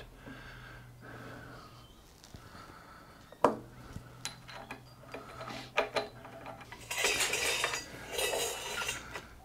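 Small metal parts clinking and knocking: a few separate sharp clicks, then two spells of rattling and scraping near the end, as a nut is worked onto the grinder spindle to hold a grinding stone.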